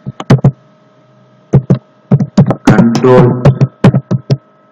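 Keystrokes on a laptop keyboard, sharp irregular clicks in small runs as a word is typed, over a faint steady electrical hum. A brief voice sound comes about three seconds in.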